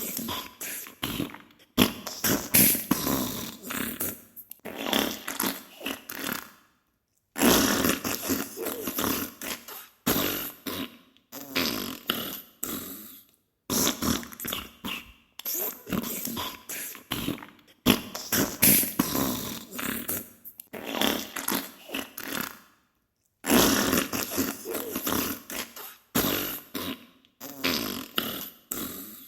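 Diarrhea sound effect: a run of loud fart noises in bursts a second or two long with short gaps between them, the same sequence coming round again about every 16 seconds.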